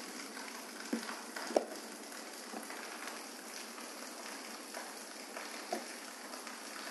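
Steady faint hiss with a few soft pops scattered through it.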